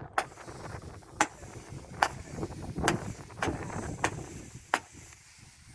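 Fireworks going off: a series of sharp pops, about one a second, over a low background rumble.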